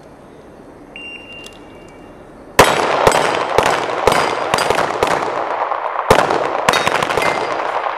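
An electronic shot-timer start beep, then about a second and a half later rapid pistol fire from two shooters at once, the shots overlapping. Steel plate targets ring as they are hit.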